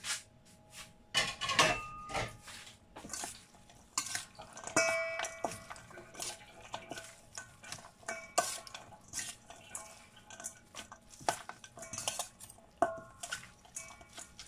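Fork and spoon tossing a rice-noodle salad in a stainless steel bowl: irregular metal clinks and scrapes against the bowl, several of them leaving a brief ringing tone from the bowl.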